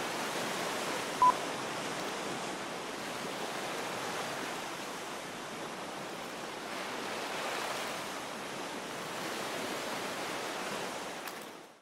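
Steady rushing noise, swelling and easing slowly, with one short high beep about a second in; it fades out at the very end.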